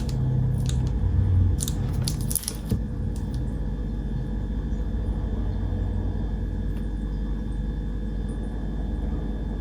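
A few sharp metallic clicks and taps from handling a Zippo lighter in the first three seconds, then a steady low hum.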